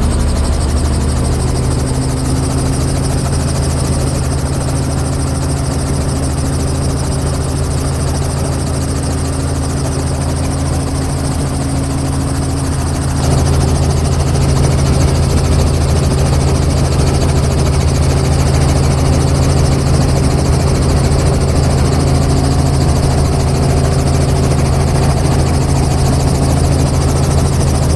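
Helicopter rotor and engine running steadily, heard from inside a doors-off cabin as a loud, even low drone with rushing noise over it. It gets louder about halfway through.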